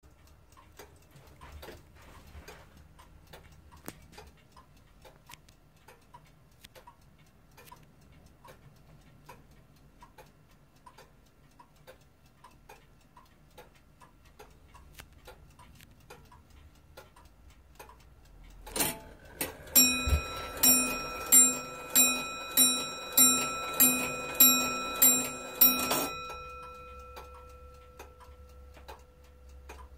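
Reproduction Comtoise clock ticking steadily. About 19 seconds in, the strike train releases with a click, then the hammer strikes the bell ten times for ten o'clock, with the train whirring between blows and the bell's tone ringing on and fading over a few seconds.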